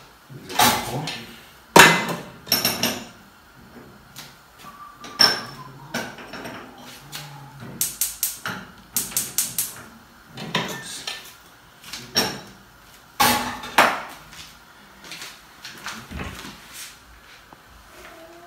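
Cookware clatter: steel pots, lids and utensils knocked and set down on a gas hob, a string of irregular sharp clanks and knocks, a few ringing briefly.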